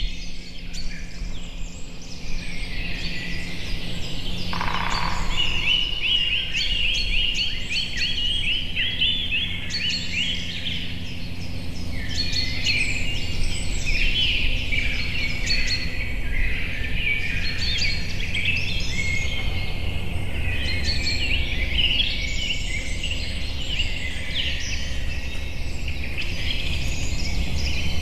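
Morning chorus of many songbirds in spruce forest, overlapping chirps and trills throughout, over a steady low rumble.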